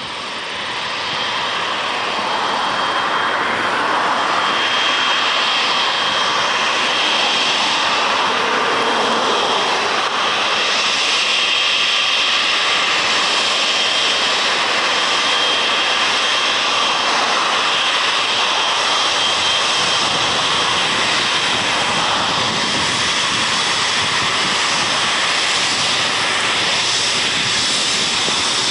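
Boeing 777's twin jet engines at low taxi power as the airliner rolls past: a steady jet whine with a thin high tone over a broad rush, growing louder over the first few seconds and then holding.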